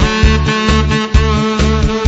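Background music with a steady beat and sustained melody lines.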